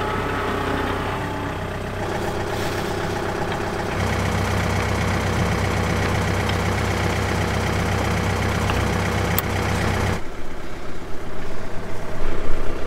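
John Deere 4052 compact tractor's diesel engine running steadily, a low drone that gets louder about four seconds in and drops away about ten seconds in.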